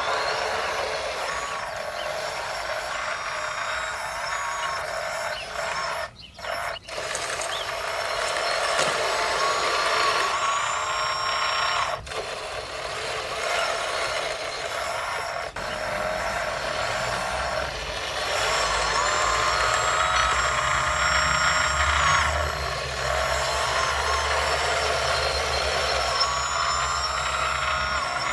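Radio-controlled scale construction models working: small electric motors and hydraulic pumps whining, rising and falling in pitch. A low engine-like hum joins about halfway through.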